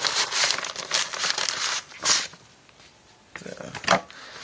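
Packaging of a mailed parcel crinkling and tearing as it is opened by hand, with a louder rip about two seconds in, then a short lull and a few more rustles and a sharp crinkle near the end.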